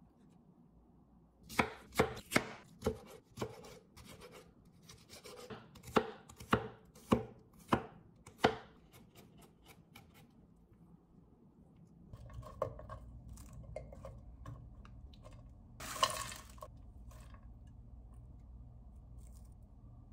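Chef's knife mincing garlic on a wooden cutting board: about a dozen sharp chops, roughly two a second, that stop partway through. A steady low hum follows, with one brief rustling burst.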